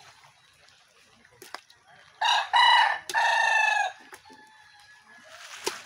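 A rooster crowing once, about two seconds in: a loud call of three linked parts lasting under two seconds. A short burst of noise follows near the end.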